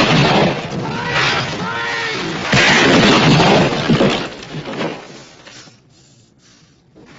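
Loud crashing with glass shattering: a sudden crash at the start, a second loud burst of breaking and crashing about two and a half seconds in, then it dies away about six seconds in.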